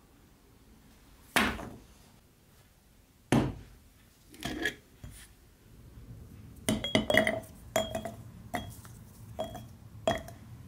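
Wine corks dropped one by one into an empty glass jar, each landing with a knock and a short glassy ring, about eight in quick succession in the second half. Two sharper knocks come earlier.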